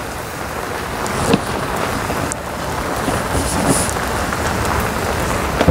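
Steady rain falling, an even hiss with a few faint ticks.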